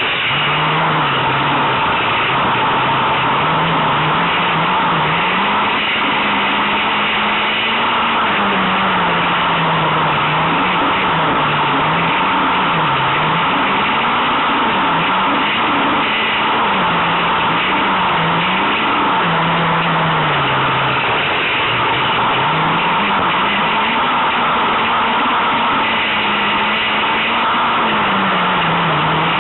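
Peugeot 106 Rallye's TU5J4 16-valve four-cylinder engine revving hard under racing load, its note climbing and dropping over and over through gear changes and corners, heard from inside the car. A constant rushing noise runs underneath.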